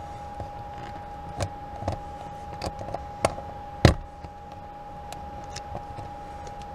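Multimeter test-probe tips clicking and knocking against a wall power outlet as they are pushed into its slots: a few sharp clicks, the loudest about four seconds in. A steady high-pitched tone hums underneath.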